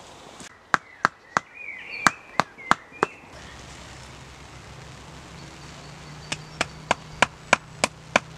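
A wooden mallet striking a guy-line stake to drive it into the ground: two runs of about seven sharp knocks, roughly three a second, with a pause of about three seconds between them.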